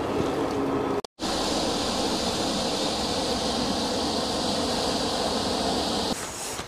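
Steady rushing noise of riding a bicycle: wind and rolling tyre noise, cut off by a short silent gap about a second in.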